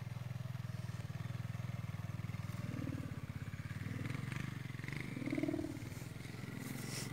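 Madurese kite hummer (sendaren) with a mica strip, buzzing steadily in the wind as a low, rapidly pulsing drone.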